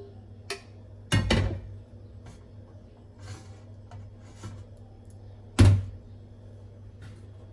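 Bowls and dishes being picked up and set down on a stainless steel kitchen counter: a double knock about a second in and another sharp knock about five and a half seconds in, with lighter clicks and rustling between, over a steady low hum.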